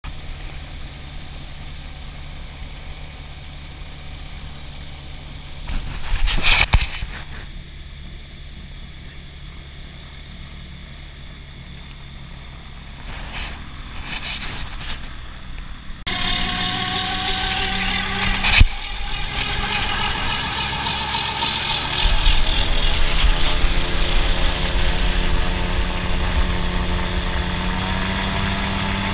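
Gyroplane engine idling steadily, with a brief louder noise about six seconds in. About halfway through it becomes suddenly louder and fuller, with a sharp knock soon after, and its pitch shifts as it opens up for the take-off run.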